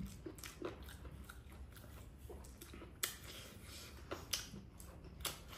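A person quietly chewing and smacking while eating, with a few sharp clicks, the clearest about three seconds in.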